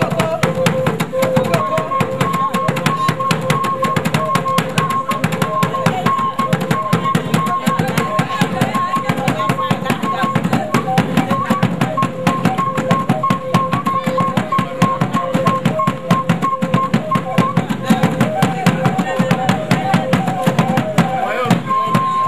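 Fast, dense drumming on a skin-headed barrel drum, with a steady pitched tone held over the beat.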